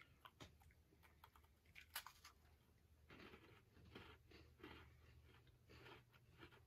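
Faint biting and chewing of a chocolate-topped LU Petit Écolier butter biscuit: a few sharp crunches in the first couple of seconds, then rhythmic chewing, about two to three chews a second, from about three seconds in.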